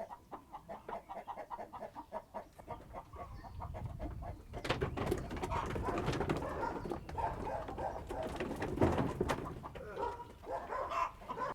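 Birds calling, fainter at first and then louder and busier from about halfway through.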